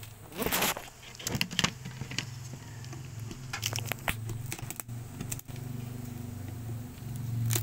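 Sticky crackling and tearing as the brittle honey pots and cerumen comb of a stingless bee nest in a coconut shell hive are broken open. A low steady hum joins about two and a half seconds in.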